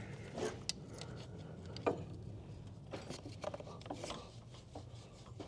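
Injector bore cleaning tool scraping and clicking inside an injector bore of a 6.7L Ford Powerstroke cylinder head as it is pushed down and twisted, cleaning out the bore after a stuck copper washer was removed. The rubbing is irregular, with one sharper click about two seconds in.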